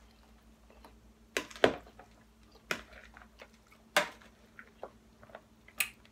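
A fork stirring baby spinach salad in a glass bowl, mixed with close-up chewing: a handful of separate sharp clicks and crunches, about one a second, with quiet between.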